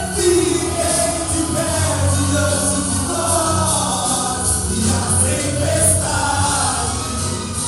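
Men's gospel choir singing a Pentecostal hymn over instrumental backing.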